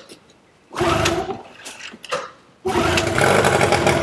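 Small outboard motor being pull-started. A short burst of cranking about a second in, then near three seconds in it catches and runs steadily, though its fuel tap is still turned off.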